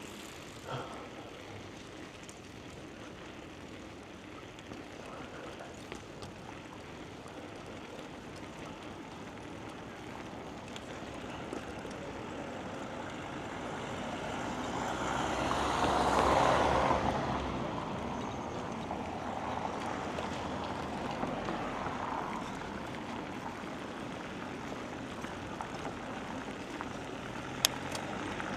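Steady rush of wind and tyre noise on a chest-mounted action camera during a bicycle ride, with a motor vehicle passing that swells to the loudest point a little past halfway and then fades. A single sharp click near the end.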